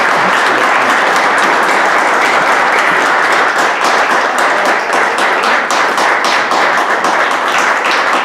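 A roomful of people applauding, a steady dense clapping that thins toward the end into more separate, uneven claps.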